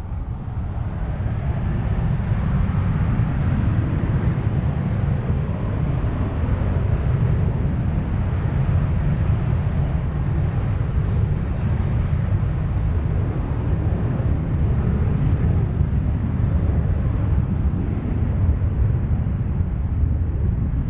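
Boeing 737-700 BBJ's twin CFM56-7 jet engines at takeoff thrust during the takeoff roll. The rumble builds over the first couple of seconds, then holds steady and loud.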